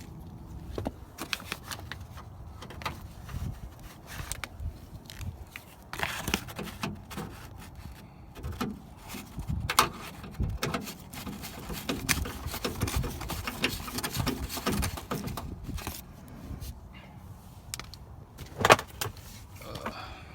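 Irregular clicks, knocks and plastic rattling as the interior door panel of a 1998 Honda Civic is handled and fitted back onto the door, with one louder sharp click near the end.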